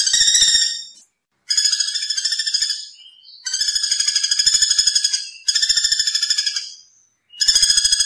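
Common flameback woodpecker calling: a series of rapid rattling trills, each one to two seconds long, separated by short gaps.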